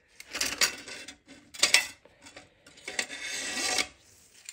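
Parts from a transmission clutch pack being handled and rubbed against each other: three scraping rubs, the last lasting almost a second.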